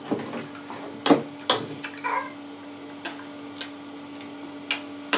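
Scattered light knocks and clicks, about six over a few seconds, as a baby taps and bangs a wooden-handled bath brush and plastic toys against a plastic baby bath. A steady low hum runs underneath.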